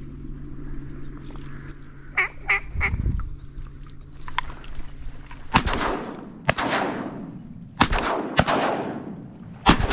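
A few short duck quacks about two seconds in, then a volley of about five shotgun blasts in the second half, each followed by a ringing echo, as hunters shoot at incoming ducks.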